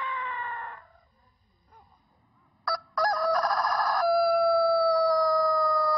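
A Japanese long-crowing rooster crowing: the drawn-out end of one crow sinks in pitch and fades about a second in, and after a short pause a new crow starts about halfway through with a rough burst, then settles into a long, steady high note held to the end.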